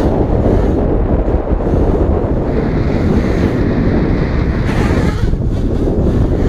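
Heavy wind buffeting the microphone, with the high whine of a Realacc GX210 racing quadcopter's brushless motors rising and falling as it flies, strongest from about halfway through to near the end.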